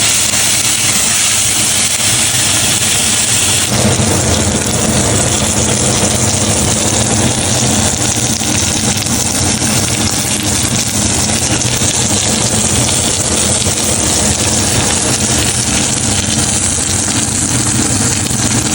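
Tomahawk steak sizzling steadily on a hot grill pan, with a steady low mechanical hum underneath that gets louder about four seconds in.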